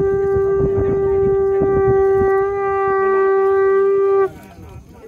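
A conch shell (shankha) blown in one long, steady note that cuts off sharply about four seconds in, sounded as the funeral pyre is lit. Faint voices follow.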